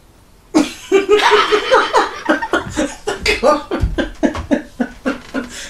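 A person laughing hard: a long run of short laughs that starts about half a second in and fades out toward the end.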